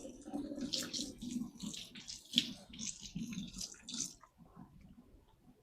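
Water running and splashing, with a sharp knock partway through, dying away about four seconds in.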